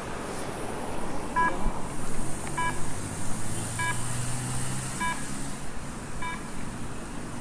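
Pedestrian crossing signal beeping: short electronic beeps about every 1.2 seconds, starting about a second and a half in, the audible cue that the walk light is green. Traffic runs past underneath.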